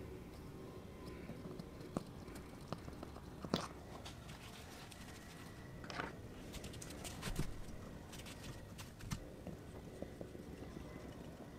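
Scattered light clicks and taps of a plastic windshield chip repair tool being handled on the glass as its injector is unscrewed and lifted off the suction-cup bridge. The sharpest knock comes about three and a half seconds in.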